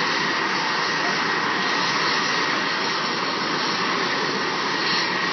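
Helicopter running on the ground with its main rotor turning: a loud, steady rush with a thin steady high whine over it.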